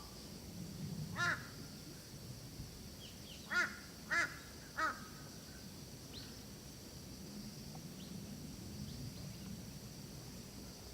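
A crow cawing four times: once about a second in, then three caws in quick succession a few seconds later. Under the caws runs a steady high insect drone.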